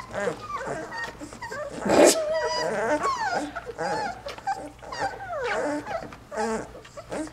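Nursing two-and-a-half-week-old puppies making a busy stream of short high squeaks and whines as they feed, with a louder squeal about two seconds in.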